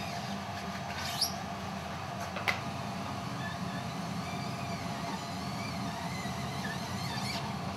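Foam dauber rubbed across a silkscreen, giving faint thin squeaks over a steady low hum, with two sharp clicks about one and two and a half seconds in.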